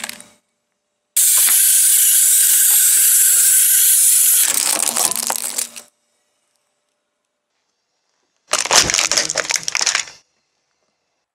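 A steady, loud hiss lasting about four and a half seconds. After a silent gap comes a second and a half of cracking and crunching with one hard crack, as a car tyre rolls over and crushes a compact digital camera.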